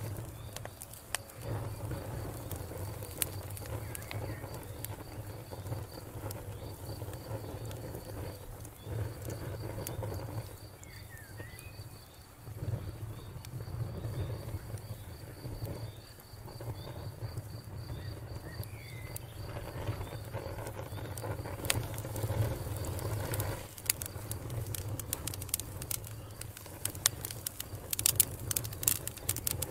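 Wood campfire crackling and popping, with a steady low rumble underneath and pops coming thicker near the end. A faint high insect trill pulses through much of it, and a bird chirps briefly a couple of times.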